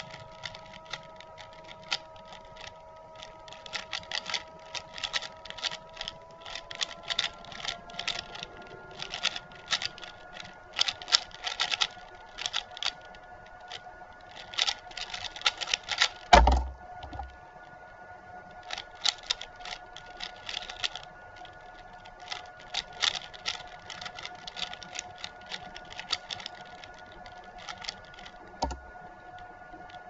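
Stickerless Valk 3 speedcube being turned fast by hand: rapid runs of plastic clicks and clacks as the layers snap round, with a heavy thump about halfway through and a smaller one near the end. A faint steady hum runs underneath.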